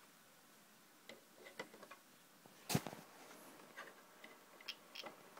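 Light, scattered clicks and taps of plastic being handled as the opened Xbox 360 Quick Charge Kit is connected up to test it, with one sharper click about halfway through.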